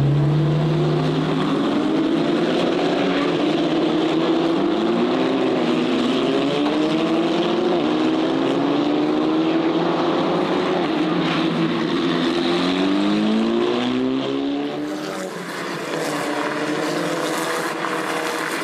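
Several Formula 4 race car engines running together as the cars pass, their overlapping notes climbing and dropping back again and again as the drivers shift up through the gears.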